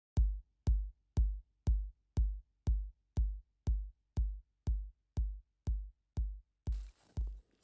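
Electronic music: a drum-machine kick drum beating steadily, about two beats a second, with a faint hiss coming in near the end.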